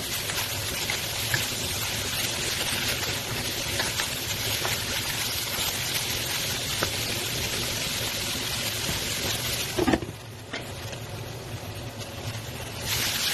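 Diced pork tenderloin sizzling in hot oil in a wok, with a steady hiss and small clicks of the spatula as it is stirred. About ten seconds in a glass lid knocks onto the pan and the sizzle turns duller and quieter, then grows loud again near the end as the lid comes off.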